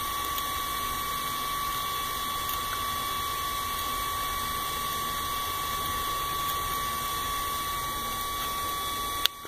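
Rotary encoder knob on a 3D printer's LCD controller clicking through its detents as it is turned, over a steady thin whine. A single sharper click comes near the end, as the knob is pressed.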